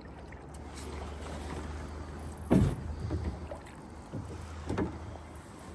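Drift boat on a river: a steady low rumble of water and the boat, with a sharp thump about two and a half seconds in and a smaller one near five seconds.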